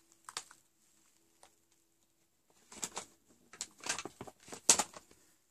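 Cosmetic product packaging handled close to the microphone: a couple of light clicks, then a run of short rustles and crackles in the second half, the loudest a sharp crinkle near the end.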